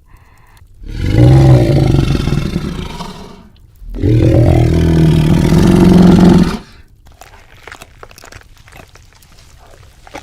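Two loud, rough growls, each two to three seconds long, the second rising in pitch partway through, voicing the wolf girl's delight at her food. Faint crackling ticks follow.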